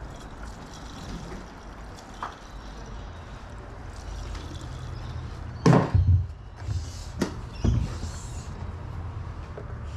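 Several sudden thuds and knocks over a low steady rumble, the loudest a close pair a little past halfway, then two sharper knocks a second or two later.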